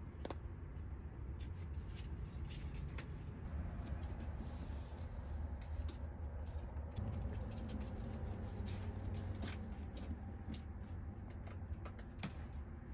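A ferret's claws scrabbling and scratching, with irregular light clicks and scuffles as it scrambles over a dog's fur and across a hard floor.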